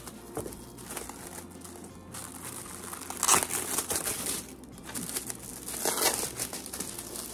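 Gift packaging crinkling and rustling as it is handled and unwrapped, with louder crinkles about three seconds in and again near six seconds.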